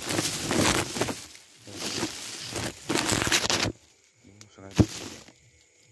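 Woven plastic sack rustling and crinkling in several loud bursts as it is handled, then a brief voice and one sharp knock about five seconds in.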